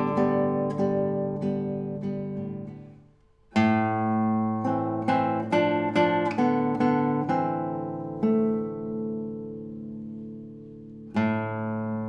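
Solo classical guitar played fingerstyle, plucked notes ringing over bass notes. One passage fades out about three seconds in, and after a brief pause a new one starts with a sharp attack. A chord is left ringing and dying away before the next notes come in near the end.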